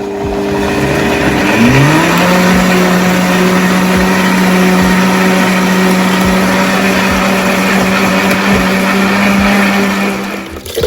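Countertop blender motor blending chopped ginger with lemon juice and water. About two seconds in it speeds up to a louder, higher steady whine, and it stops just before the end.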